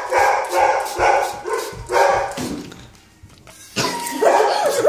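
A dog barking repeatedly, about four barks in quick succession, a short pause, then more barking near the end.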